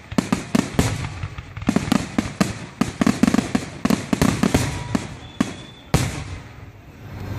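Fireworks grand finale: a rapid, dense string of bangs and crackles for about five seconds, thinning out, then one last loud bang about six seconds in.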